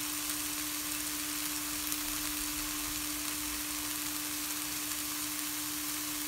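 Drumstick flowers and shallots frying in ghee in a pan, giving a steady, even sizzle, with a steady hum underneath.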